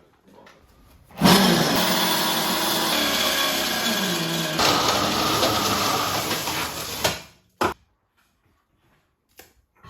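A loud motor starts abruptly, runs for about six seconds with its pitch sagging partway through, then cuts off; a single sharp click follows.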